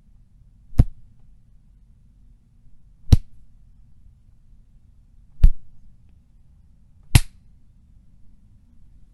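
Four separate punch sound effects, each a single short, sharp hit, spaced about two seconds apart over a faint low hum.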